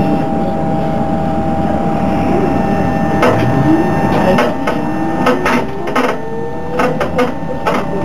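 LAZ E301 trolleybus in motion: a steady electric whine with a tone rising slowly in the second half, while the body creaks and clatters, with a string of sharp knocks and rattles from about three seconds in.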